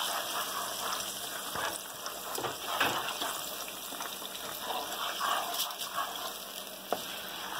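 Wet ground-onion paste bubbling and sizzling in hot oil in a frying pan, steady throughout. A wooden spatula stirs it, with faint scrapes and clicks now and then.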